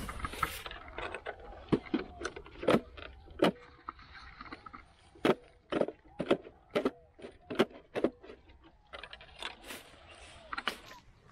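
Metal detector being worked over a freshly dug hole: a string of short, sharp clicks, irregular at first and then about two a second in the middle, over a faint steady hum.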